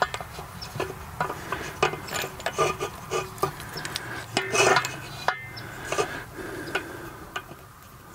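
Irregular clicks, knocks and rubbing of a garden hose and its fittings being handled at a wall-mounted Eley hose reel, with a louder rub about four and a half seconds in.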